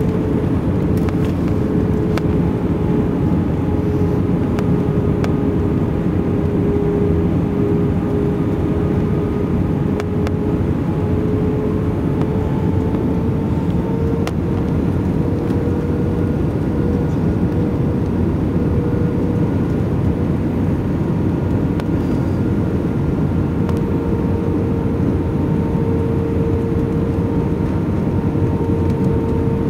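Airplane cabin noise during the approach to land: a steady rush of engine and air noise under a hum whose pitch drifts slowly upward.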